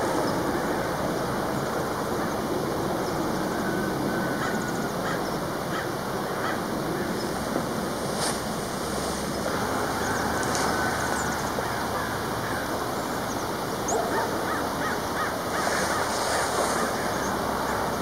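Steady rushing wind noise on the microphone, with a few faint, short bird calls over it.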